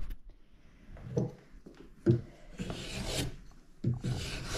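Small hand plane shaving along a wooden violin bass bar blank, a few scraping strokes, the longest about a second. This is the bass bar being thicknessed down to height.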